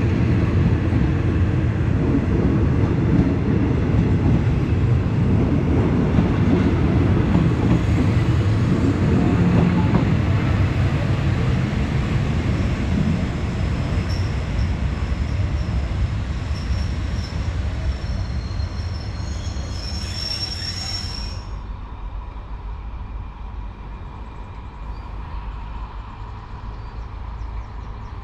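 Passenger train rolling past, a deep rumble of wheels and running gear that slowly fades away. High-pitched wheel squeal rings out over the rumble in the middle, then cuts off suddenly.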